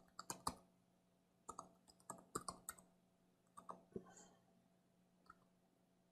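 Faint computer keyboard keystrokes, about a dozen irregular taps as a command is typed, thinning out after about four seconds.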